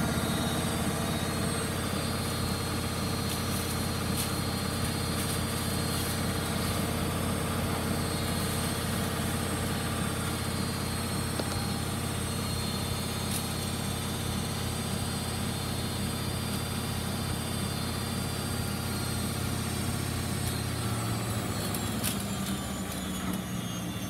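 Bendix BIW 103W front-loading washing machine on its spin cycle: a steady, loud drone of the motor and spinning drum. The owner says the machine has bad drum bearings. Near the end the hum drops away and the whine falls in pitch as the drum starts to slow.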